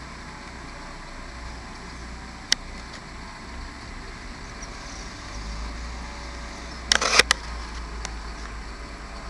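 Steady low rumble of road traffic in a narrow village street. A single sharp click comes about two and a half seconds in, and a short burst of loud crackles about seven seconds in.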